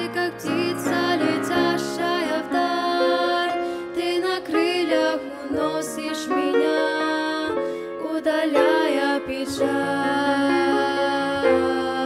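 A slow Russian-language Christian song: a grand piano plays a gentle accompaniment while female voices sing.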